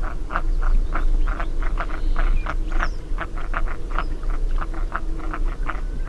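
Red-breasted merganser calling: a fast series of short, rasping croaks, about four a second, over a steady low rumble.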